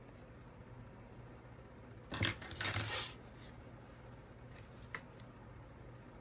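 A short hard clatter and rustle about two seconds in, as scissors are set down and a paper booklet is handled, with one small tick a little later; otherwise quiet.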